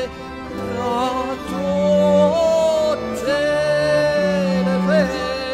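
A slow devotional song in dialect: a singing voice holding long notes with a slight waver over sustained low instrumental notes.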